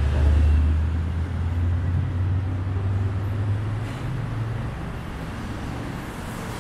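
Street traffic with a heavy vehicle's low engine hum that rises a little in pitch and fades away after about four seconds, over a steady traffic din.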